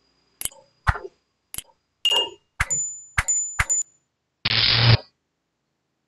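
Subscribe-button animation sound effects: a run of about seven sharp clicks, several of them with a short bell-like ding, followed about four and a half seconds in by a half-second burst of noise.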